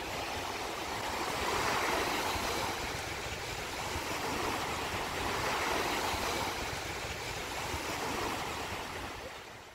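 Surf breaking and washing onto a sandy beach: a steady rush that swells and eases, fading out near the end.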